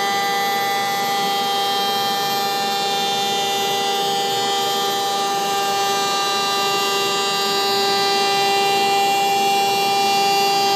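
CNC router spindle running with a steady high whine as the machine takes a jointing pass, the router bit cutting along the edge of a maple board. The sound grows slightly louder in the second half.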